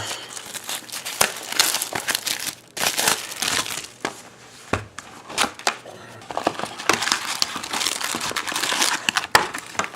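Plastic wrapping on a box of trading cards crinkling and tearing as it is opened, in irregular rustles and crackles with a short lull in the middle.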